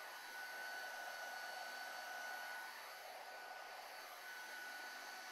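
Heat gun blowing steadily, a faint airy hiss with a thin steady whine, as it reheats the area between the outlets of a heat-shrink molded transition part so the part shrinks fully to shape.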